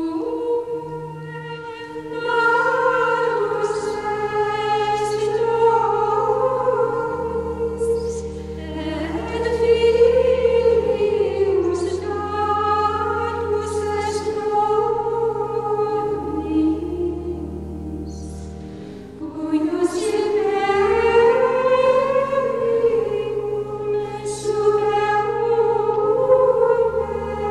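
Background music: slow vocal music with long, drawn-out sung notes over sustained low tones.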